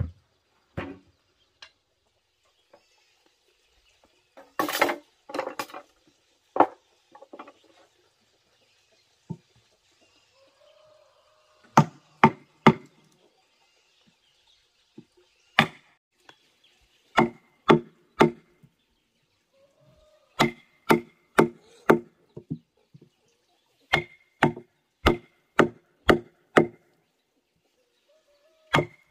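Wooden mallet striking a steel chisel into a tree stump to carve out its hollow. A few scattered knocks come first, then runs of steady blows at about two a second, each with a faint ring.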